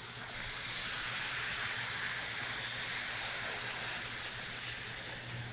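Coconut milk poured into a hot stainless-steel pan of sautéed peppers and onions, hissing and steaming steadily as the cold liquid hits the hot metal. The hiss starts a moment in and holds even.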